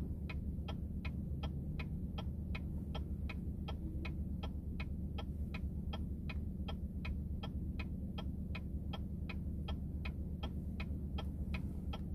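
GMC Yukon XL's turn-signal indicator ticking evenly, about three ticks a second, over the steady low hum of the engine and road inside the cabin.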